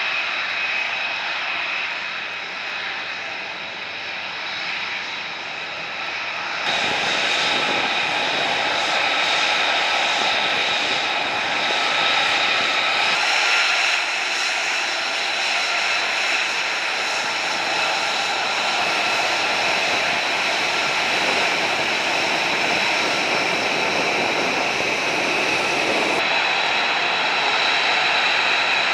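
F-35B fighter jet's F135 engine running loudly, a steady jet rush with several high whining tones on top. The sound changes abruptly three times, about a quarter of the way in, near the middle and near the end, as the footage cuts between takes.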